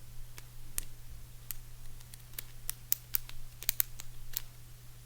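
Plastic bendy snake fidget toy being twisted and rolled up by hand, its segments giving about a dozen sharp, irregular clicks over a steady low hum.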